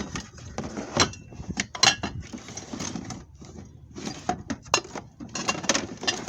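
Belongings being rummaged through by hand: irregular knocks, clatters and rustling as objects are moved and pulled out of a box.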